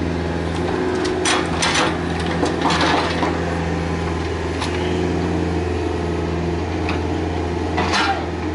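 Komatsu PC45MR mini excavator's diesel engine running steadily, with a series of sharp thuds and knocks as bucketloads of soil are tipped into a steel dump-truck bed over the first few seconds, and another knock near the end as the bucket goes into the trench.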